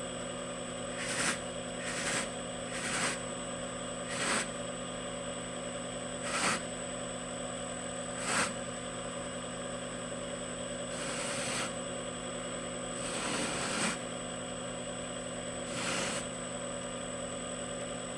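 Slow-running buffer motor humming steadily while a briar pipe bowl is worked against its firm sewn buffing wheel, each pass a short swish at irregular intervals, two of them longer near the middle. This is the wheel and red compound cutting back the black top coat so the red stain beneath shows through.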